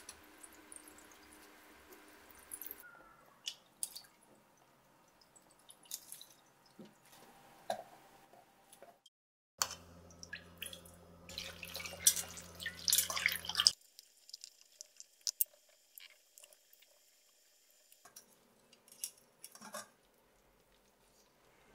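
Red pepper water dripping and trickling through a cotton straining cloth into a stainless steel bowl, with a few light knocks and clinks. The cloth bundle is squeezed by hand to press out the coloured liquid for nabak kimchi brine.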